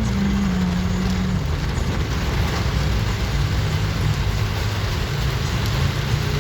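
Road vehicle driving in heavy rain: a steady hiss of rain and wet-road noise over a low engine hum whose pitch steps down about a second and a half in.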